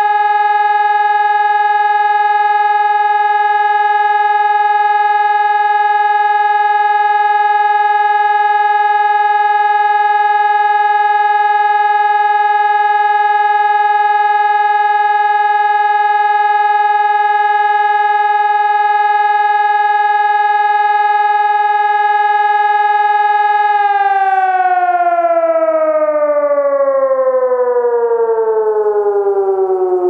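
PPSS 600-C civil-defence siren sounding one steady, unwavering tone, then, a few seconds before the end, winding down with a smooth fall in pitch.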